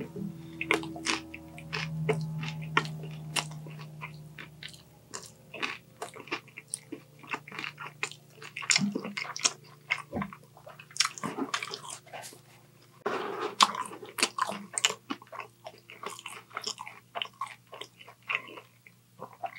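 Close-miked chewing of crispy battered spicy orange chicken: a run of wet smacks and crunchy clicks from the mouth, with a low hum in the first few seconds.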